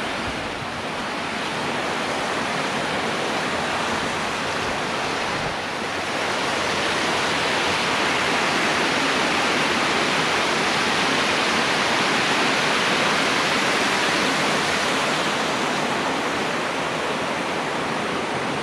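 Steady rush of water from the Khandadhar waterfall, a little louder from about six seconds in.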